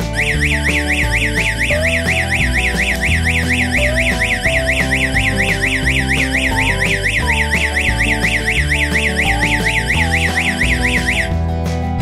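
Electronic siren of an alarm system's siren-strobe unit, set off by a panic button, sounding a rapid up-and-down warble of about four sweeps a second. It cuts off suddenly about eleven seconds in. Background music with a guitar plays underneath.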